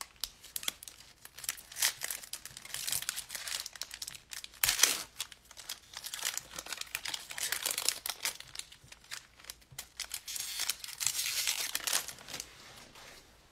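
Foil wrapper of a football trading-card pack crinkling and being torn open, in irregular bursts that are loudest about five seconds in.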